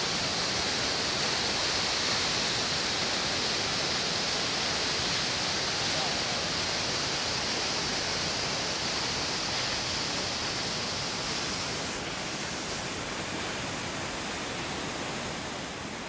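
Waterfall on the Hérisson river: a steady rush of white water falling over a rock ledge, a little quieter in the last few seconds.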